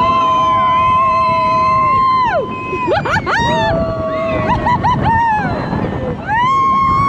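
Loud held whistle-like tones sounding several pitches together, each note sliding down as it ends, with quick swooping pitch sweeps and short notes in between.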